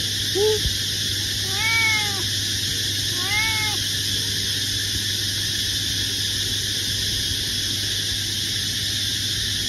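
Domestic cat meowing three times in quick succession, short calls that rise and fall in pitch, the first one shortest and lowest. It is a hungry cat asking for food.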